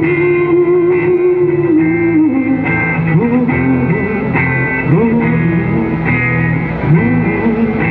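Electric guitar playing an instrumental break over a band backing with a steady bass line: a long held note for about two seconds, then short phrases with bent notes.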